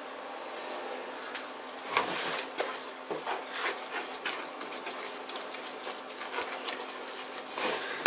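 A wooden spoon stirring and scraping a wet flour-and-water yeast dough in a plastic mixing bowl, with irregular scrapes and small knocks against the bowl. There are louder bursts about two seconds in and near the end.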